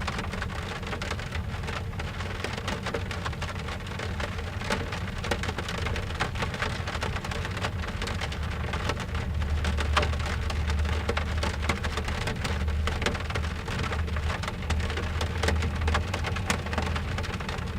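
Rain drumming on a car's roof and windows, heard from inside the car: a dense patter of drops over a steady low rumble that swells about halfway through.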